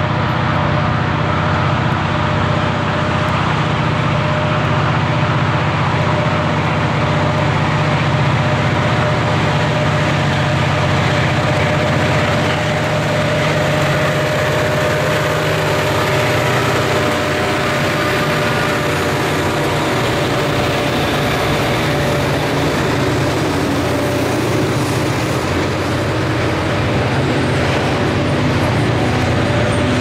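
Two Norfolk Southern EMD diesel locomotives running as they approach and pass at trackside, their engines giving a steady drone, then the rolling noise of a double-stack container train going by in the second half.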